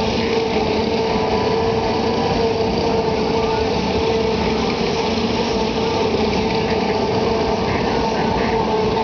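Steady engine-like drone of fairground machinery running, with a constant hum over a wash of noise.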